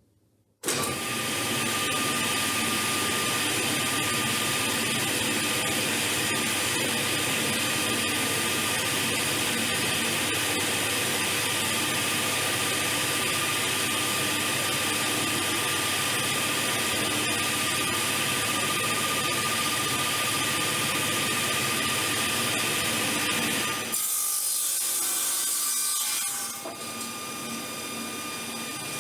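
Electric power saw cutting wood boards, starting abruptly under a second in and running steadily with a thin whine over a loud hiss. Near the end the sound changes and drops in level.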